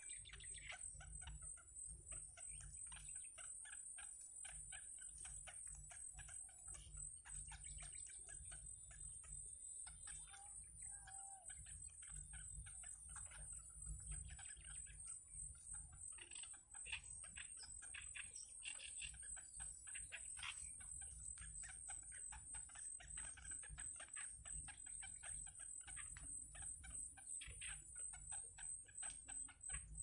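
Yellow bittern chicks calling from the nest as they beg to be fed: a rapid, clicking chatter. A steady, high-pitched pulsing buzz runs behind it.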